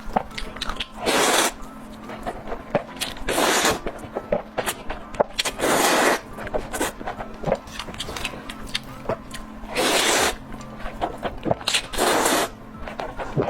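Close-miked eating sounds: a stream of short, wet chewing clicks, broken five times by louder noisy bursts of about half a second each.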